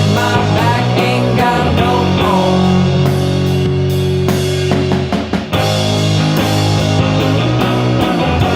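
Rock music with electric guitars and a steady drum beat, a song on the soundtrack; it thins briefly about five seconds in.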